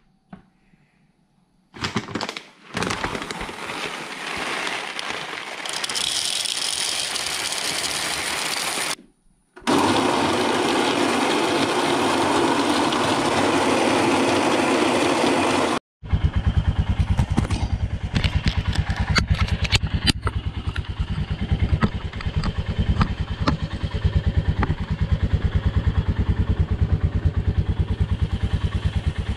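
Royal Enfield Himalayan 411's single-cylinder engine idling with a fast, even beat, starting about halfway through. Before it, after a short quiet spell, comes a long stretch of loud, steady whirring noise.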